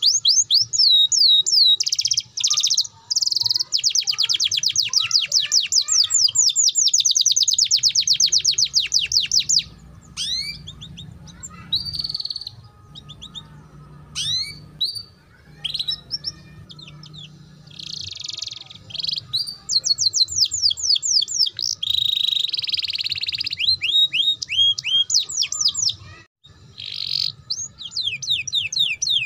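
Domestic canary singing the fast rolling 'ngeriwik' trill, long runs of rapidly repeated high sweeping notes. About ten seconds in it breaks into scattered short notes and phrases, then the rapid trills resume for the last ten seconds.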